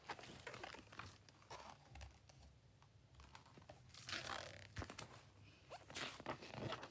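Faint rustling of a large picture book's paper pages as the book is handled and its pages turned: a few soft swishes and a light knock a little before five seconds in.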